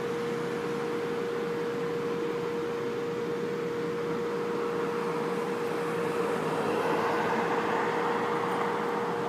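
Street traffic noise with a car passing, the noise swelling about six seconds in and easing near the end, over a steady hum.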